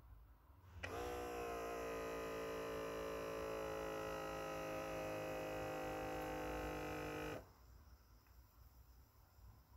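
Electric air pump of an automatic upper-arm blood pressure monitor running as it inflates the cuff at the start of a measurement. It is a steady hum that starts about a second in and stops abruptly about six and a half seconds later.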